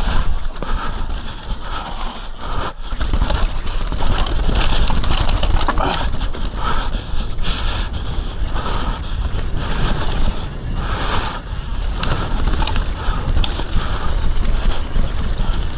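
Mountain bike ridden fast down a dirt track: wind buffeting the microphone over the rumble and crunch of knobby tyres on dirt and the bike rattling over the bumps. The noise drops out briefly about three seconds in.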